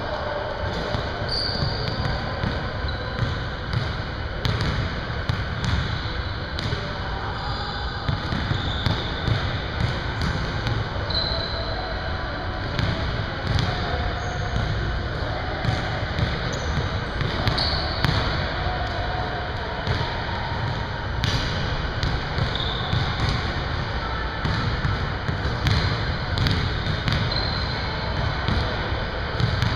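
Basketballs bouncing on a hardwood gym floor during a shooting drill, irregular thuds throughout, with occasional short high sneaker squeaks.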